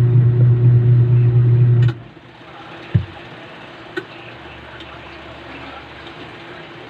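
Washing machine motor running with a steady loud hum, cutting off abruptly about two seconds in; a low thud and a small click follow.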